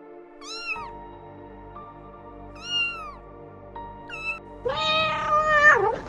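Cat meowing about four times, the last call longest and loudest, over soft background music.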